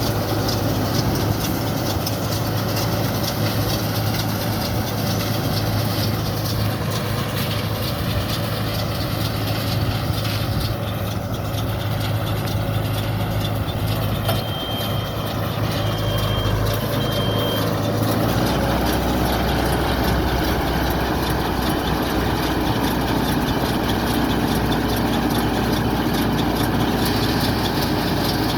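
Tractor engine running steadily with a round baler working behind it. Three short high beeps come around the middle, and the engine's low note drops deeper about two-thirds of the way through.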